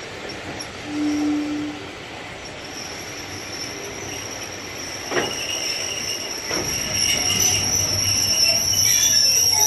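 Train wheels squealing on the rails, a high steady squeal that sets in a couple of seconds in and grows louder toward the end, with two knocks a little past halfway. A brief low tone sounds about a second in.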